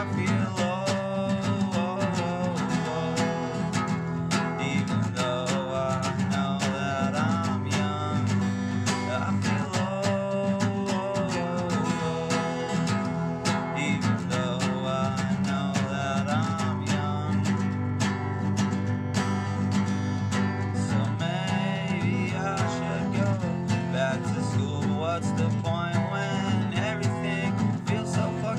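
Steel-string acoustic guitar strummed steadily, playing the chords of a song.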